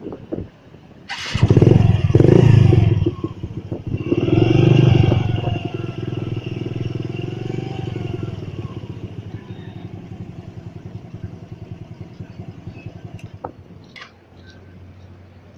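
Honda underbone motorcycle engine starting about a second in, revved twice, then idling with a steady pulse until it is switched off near the end.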